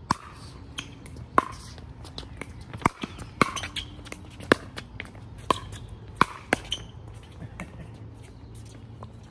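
Pickleball rally: about a dozen sharp pops at uneven intervals as paddles strike the hard plastic ball and it bounces on the court.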